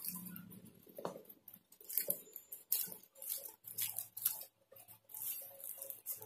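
Thin plastic (LDPE) protective sleeve rustling and crinkling in irregular bursts as a pen tablet is slid out of it by hand.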